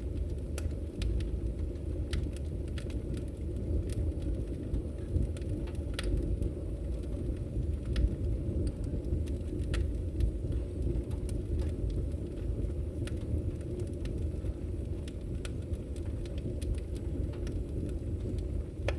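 Campfire burning: a steady low rumble of flames with irregular sharp crackles and pops scattered through it.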